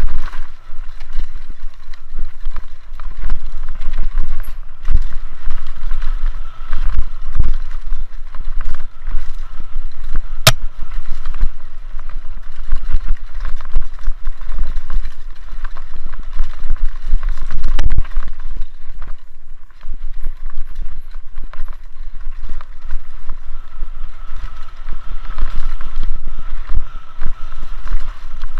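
Mountain bike descending a dirt forest singletrack: constant rattle and clatter from tyres over roots and stones and from the bike, with low wind rumble on the microphone. One sharp click stands out about ten seconds in.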